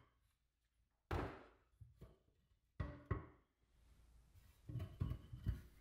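A few knocks and thunks from handling a small steel fuel tank and standing a cordless work light on a wooden bench: one about a second in, two close together near three seconds, and a cluster near the end.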